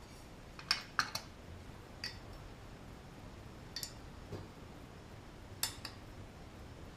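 Sharp metal clicks and clinks at irregular intervals, a few close together about a second in and more near the middle, as the safety guard is fitted onto a new 7-inch angle grinder.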